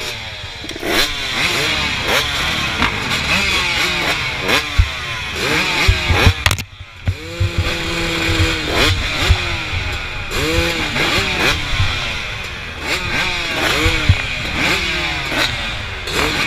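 Several motocross bikes revving at the starting gate, engines blipped up and down over and over and overlapping. About seven seconds in, one briefly drops away, then holds a steady rev for about a second.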